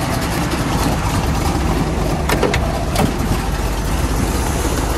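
Pontiac SD-455 Super Duty V8 in a 1973 Trans Am idling steadily, with a couple of light knocks about halfway through.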